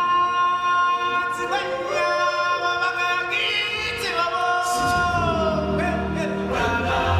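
Stage-show music: a choir singing long held notes, the pitch shifting every second or two, with a deep bass layer coming in about five seconds in.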